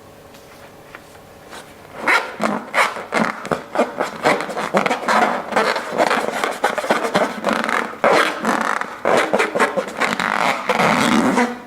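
Slime being squished and worked by hand: a dense run of sticky clicks and crackles that starts about two seconds in and stops suddenly near the end.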